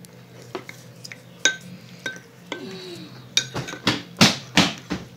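Bowls and utensils clinking and knocking on a table while slime is worked in a bowl: scattered light clinks, then a quicker run of louder knocks in the last second and a half.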